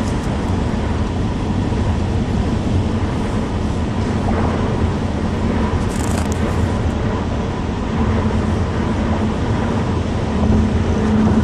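Steady road and engine noise heard from inside a moving car's cabin, a continuous low rumble.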